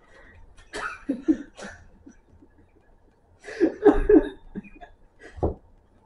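A man laughing in short breathy bursts, once about a second in and again, louder, near the middle. A single thump comes near the end.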